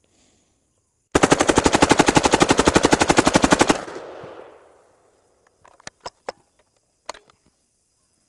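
Fully automatic fire from a compact submachine gun: one long burst of rapid shots lasting about two and a half seconds, its echo dying away after. A few faint clicks follow later.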